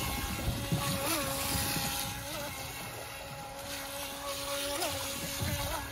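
Small high-speed RC speedboat running, its electric motor giving a steady whine that briefly rises in pitch about a second in and again near the end. A rough rumble of wind and water sits underneath.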